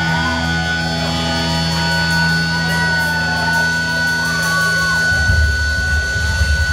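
Live punk rock band playing through the PA, heard from among the audience: electric guitars and bass holding long notes under a wavering voice line. About five seconds in, the band comes in fuller with a heavier, pulsing low end.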